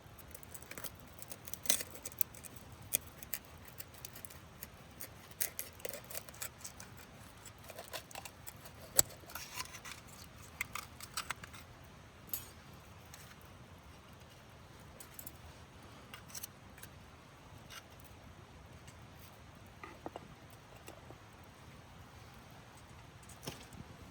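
Irregular sharp clicks and small clinks, many in quick succession through the first half, then only a few scattered ones over a quiet background.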